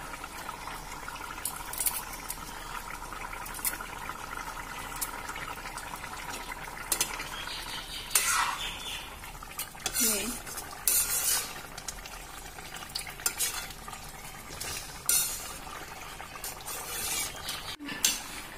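Thick curry simmering and bubbling in an iron kadai, while a steel ladle stirs it, clinking and scraping against the pan again and again.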